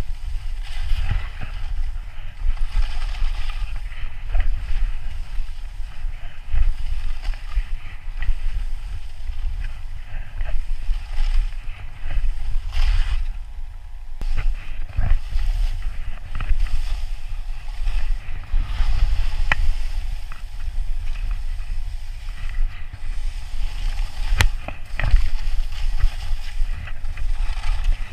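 Skis scraping and hissing across snow in repeated turns, the scrape swelling every second or two, under a steady rumble of wind on a GoPro microphone. A couple of sharp clicks sound in the second half.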